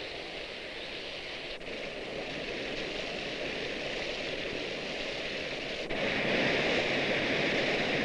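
Steady rush of water running over rocks in a stream. About six seconds in it turns suddenly louder and brighter, the sound of a tall waterfall.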